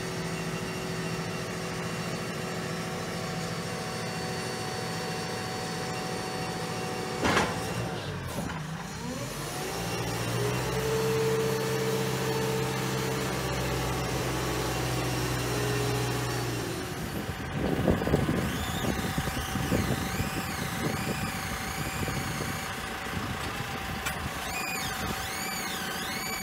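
JCB 540-140 telehandler's diesel engine running, with a sharp click about a third of the way in. The revs then rise and hold for several seconds as the boom hydraulics work to retract and lower the boom, then ease off about two-thirds through into a rougher, uneven run.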